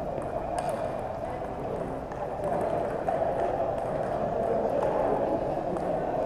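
Table tennis ball clicking lightly against paddles and the table during a rally, over a steady murmur of voices echoing in a gymnasium.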